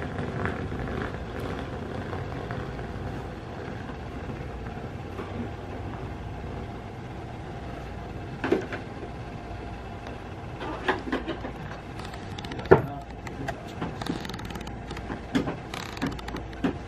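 Plastic trim on a Honda Accord's trunk lid being pried off its clips: scattered sharp clicks and snaps from about halfway in, the sharpest about three-quarters through, over a steady low hum.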